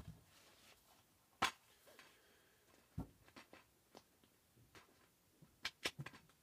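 A plastic DVD keep case being opened and handled: a few separate sharp clicks and taps, then a quick cluster of small clicks near the end.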